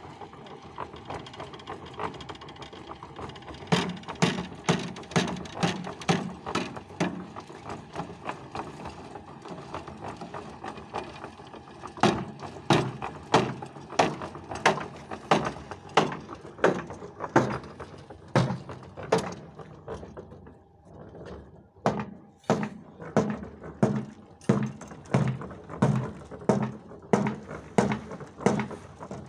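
Rhythmic sharp knocks, about two a second, in two long runs with a short pause about twenty seconds in, over a steady background noise.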